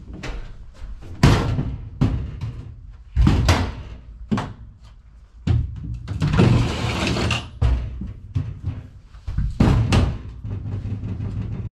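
Knocks and thumps of an aluminium storage case being handled and set down on the floor, several sharp ones spread through, with a longer rough noise of about two seconds near the middle.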